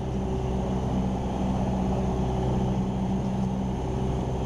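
Cessna 172R Skyhawk's four-cylinder Lycoming engine and propeller droning steadily in flight, heard from inside the cabin.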